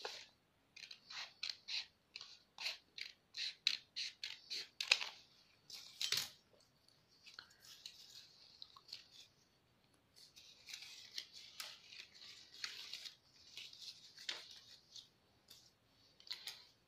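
Scissors snipping through folded card-sheet paper in runs of quick cuts, with one louder snap about six seconds in.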